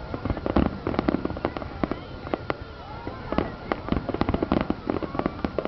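Fireworks display going off in a rapid, irregular string of bangs and crackling pops.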